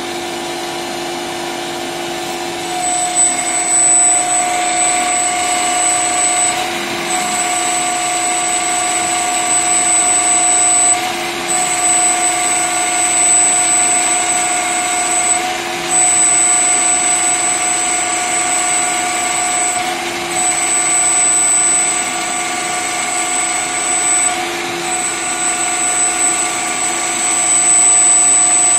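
Small CNC turret lathe machining a metal part: motors and cutting running with a steady whine and hum. The high whine comes in about three seconds in, then breaks off briefly about every four and a half seconds as the machine's cycle repeats.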